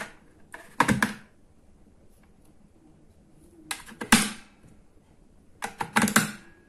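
Battery cells being pushed into the spring-loaded slots of an Opus BT-C3100 charger, first two 18650 lithium-ion cells and then two Eneloop AA cells. Each insertion is a short clatter of clicks: four in all, about a second apart for the first two, then one at four seconds and one at six.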